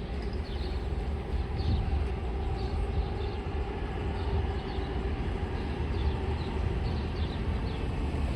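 LYNX light rail train running by: a steady low rumble with a faint even hum.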